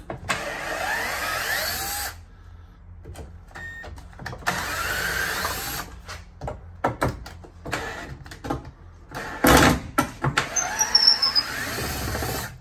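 Power drill running in three bursts of a couple of seconds each, its whine rising as it spins up each time, with knocks and clatter in between as fittings are taken out.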